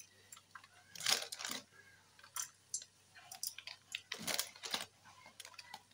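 Light crackling and rustling from a hand sprinkling sunflower seeds over a proofing sourdough loaf in a parchment-lined steel pot. Two louder rustles come about a second in and just past four seconds, among scattered small clicks.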